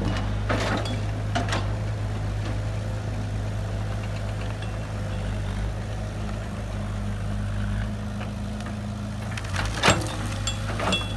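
Heavy construction machine's diesel engine running steadily at a low, even pitch, with a few short knocks near the start and near the end.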